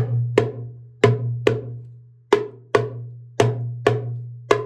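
Darbuka slap strokes, sharp hand strikes in pairs about half a second apart, with a low ring holding under them.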